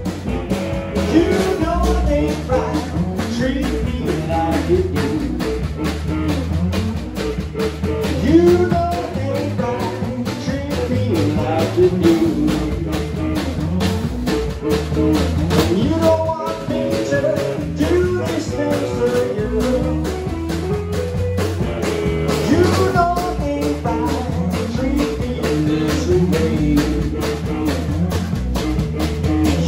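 Live blues band playing: amplified blues harmonica, played into a handheld bullet-style microphone, carries bent notes over drum kit and electric bass.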